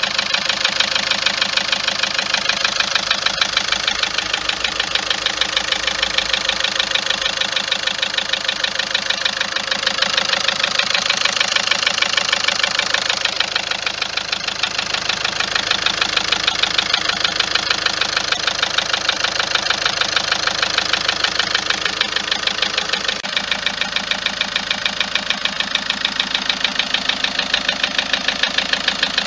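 Car engine idling with a steady, rapid, even ticking clatter. The mechanic puts the clatter down to the injector nozzles and the tappets.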